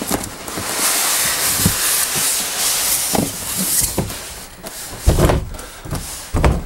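Large cardboard monitor box being lifted and slid off its foam packing, a steady scraping rustle of cardboard, followed by two heavy dull thumps near the end.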